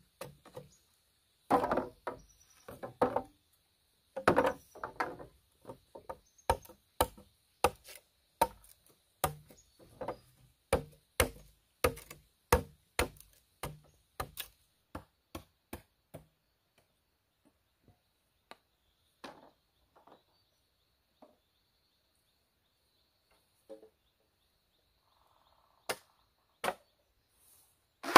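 Machete blade chopping into a green bamboo pole resting on a wooden beam: sharp, uneven strikes about one to two a second, stopping a little past halfway, with a few scattered knocks near the end.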